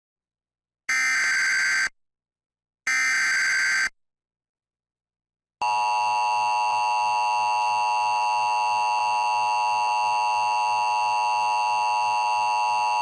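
Emergency Alert System tones signalling a severe thunderstorm warning. First come two short bursts of the SAME digital header, screeching data tones about a second each. Then, about five and a half seconds in, the steady two-tone EAS attention signal starts and holds unchanged.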